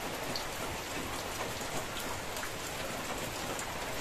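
Steady rain: an even hiss with scattered drop ticks.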